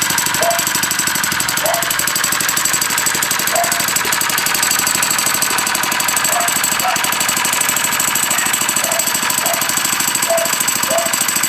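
Small 3 hp four-stroke single-cylinder engine on a motorized bicycle, running steadily with a rapid, even firing beat.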